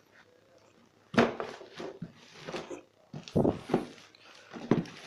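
Cardboard box being turned over and handled: a series of irregular rustles and knocks, loudest about a second in and again around three and a half seconds in.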